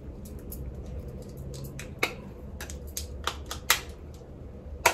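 Scattered sharp plastic clicks and taps from a Marc Jacobs Accomplice powder compact being handled with long acrylic nails, the loudest click near the end.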